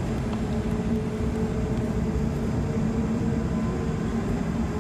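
Cabin sound of an Air France Airbus A380 on the ground, its Engine Alliance GP7200 engines running steadily: a low rumble with a steady hum through the fuselage.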